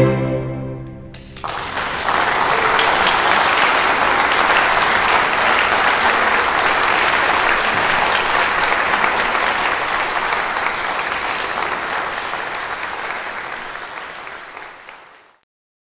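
The string quintet's final chord rings briefly and dies away, then a concert audience breaks into steady applause, which fades and cuts off near the end.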